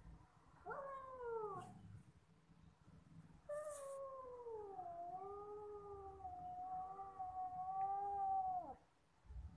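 Cat meowing: a short falling meow about a second in, then a long drawn-out meow of about five seconds that falls in pitch and then holds with a slight waver before cutting off.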